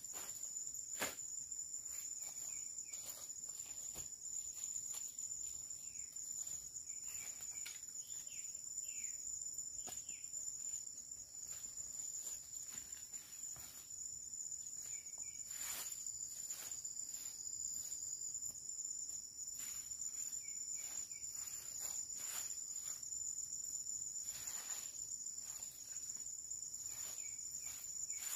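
Steady high-pitched drone of forest insects, with scattered snaps, cracks and rustles of dry twigs and leaf litter being handled.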